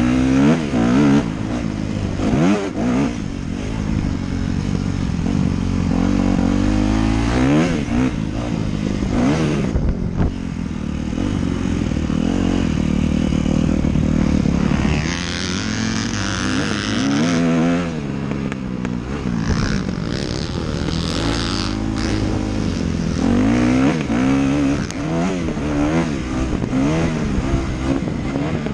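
Dirt bike engine revving up and dropping back again and again as the rider accelerates, shifts and backs off around the track. Stretches of rushing wind noise hit the helmet camera's microphone.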